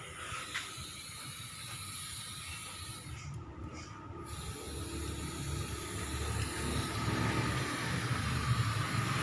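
Compressed-air blow gun hissing steadily, cutting out twice briefly about three to four seconds in.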